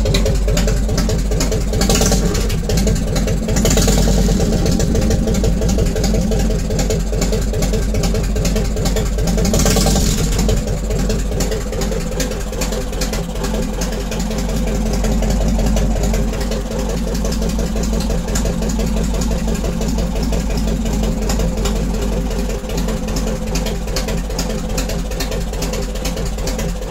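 Yamaha XV1600 carbureted V-twin idling through a homemade 50 mm stainless straight pipe with no baffle, open and loud, with the loping three-beat idle rhythm.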